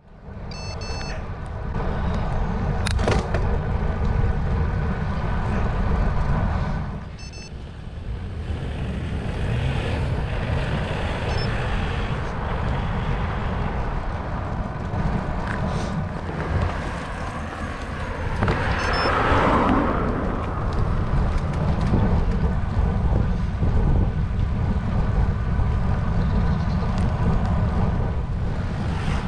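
Wind buffeting the handlebar-mounted camera's microphone, mixed with tyre noise from a road bike rolling on tarmac: a steady low rush that swells briefly about two-thirds of the way through.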